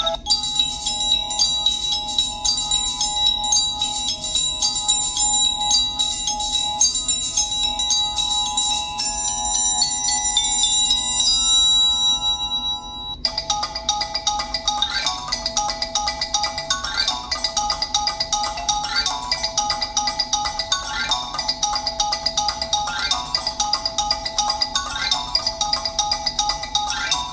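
Preloaded Samsung Galaxy S3 ringtones playing one after another: first a melody of long ringing notes that thins out and stops about halfway through, then a different tune of short notes repeating in a steady pattern.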